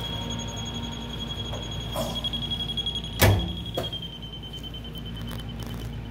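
Solder paste inspection machine's warning buzzer sounding one steady high tone, the emergency-stop alarm. A loud thump about three seconds in, and the tone dips slightly in pitch soon after.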